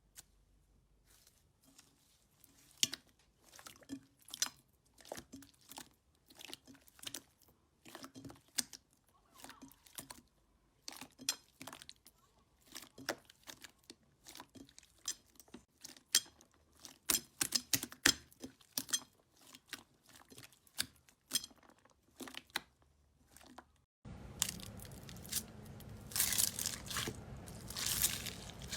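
Slime being squeezed and pressed by hand close to the microphone, making irregular sharp crackles, pops and crunches, several a second. About 24 s in, the background hiss jumps up and the crackling becomes denser and louder.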